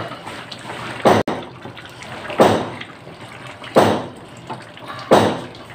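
Wooden spatula stirring a thick, simmering curry in a pan, a wet slosh with each stroke; four strokes about a second and a half apart.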